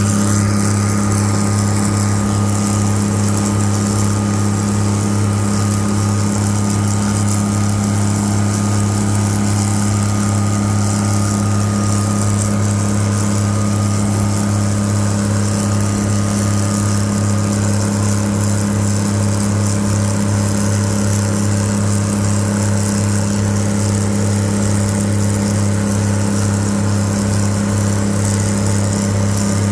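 Twin Cummins NTA-855 inline-six diesel engines of a GE 80-ton center-cab switcher locomotive screaming at steady high revs under heavy load, pulling the locomotive up a grade.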